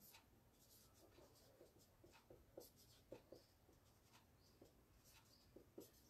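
Faint, irregular short scratches and taps of a marker pen writing on a whiteboard.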